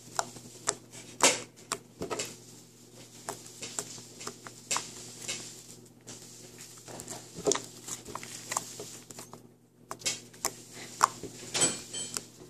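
Fluffy slime being poked and squished by fingers, giving irregular small clicks and crackling pops.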